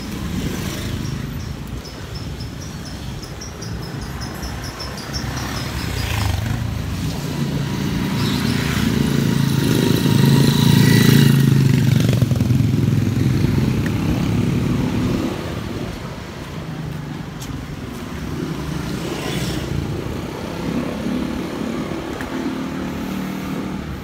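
Street traffic of motorcycles and a small minibus passing close. The engine noise swells to its loudest about eleven seconds in and fades again a few seconds later.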